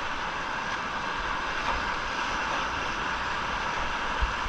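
Steady rush of whitewater river water, with wind buffeting the microphone in low thumps.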